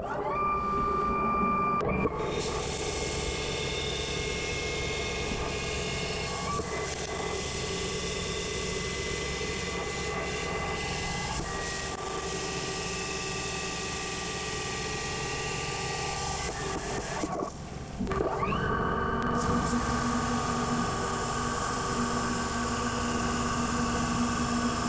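Mazak Integrex mill-turn machine cutting under flood coolant: a steady spindle whine over the hiss of coolant spray, its pitch stepping to new speeds several times. About 17 seconds in the sound briefly drops, then the whine rises again as the spindle spins back up.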